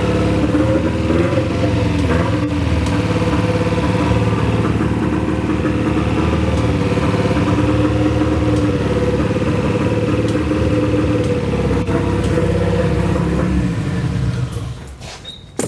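Nissan SR20 inline-four engine running at idle on its first start after being installed, sounding uneven in a way the owners take for a misfire, possibly from old fuel left in the system. It is shut off near the end.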